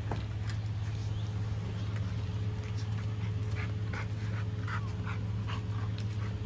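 Pit bull-type dog whining in a string of short, high whines, about two a second from partway in, begging for the raw chicken it is being fed. A steady low hum runs underneath.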